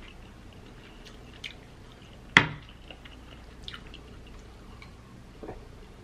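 Soft clicks and small mouth and liquid sounds, with one sharp glass clink a little over two seconds in, as a wine glass holding ice is picked up and sipped from.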